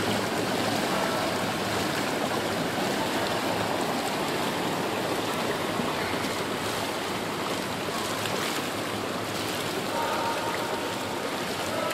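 Steady rush and splash of swimming-pool water churned by a child's swimming strokes and kicks.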